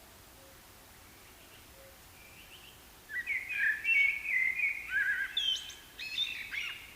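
Small birds chirping: faint high chirps at first, then from about three seconds in a loud run of quick twittering and gliding notes that stops just before the end.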